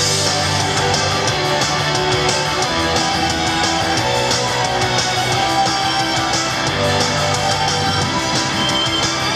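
Instrumental intro of an upbeat idol pop-rock song, played from a backing track over loudspeakers, with electric guitar and a steady driving beat. It starts abruptly at full volume.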